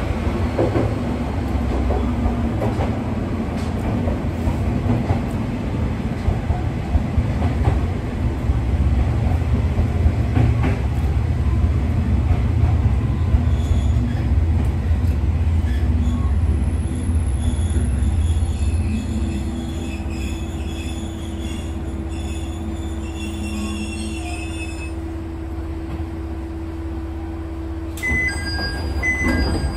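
Diesel railcar of the Kanto Railway Joso Line running with a heavy low rumble, with faint high wheel squeals partway through. The rumble eases into a steadier hum with a held tone, and two short beeps sound near the end.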